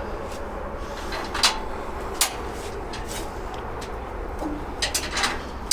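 Scattered sharp metal clinks and knocks from parts and hardware being handled while a steel tool cart is put together and bolted up, five or so separate hits over a steady low background hum.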